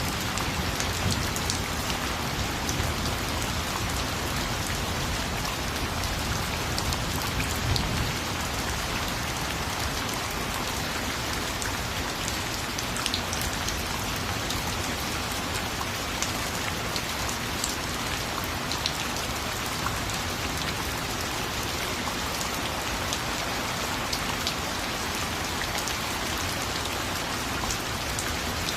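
Steady rain falling, a continuous hiss with scattered single drops ticking on a surface. There is a low rumble in the first several seconds.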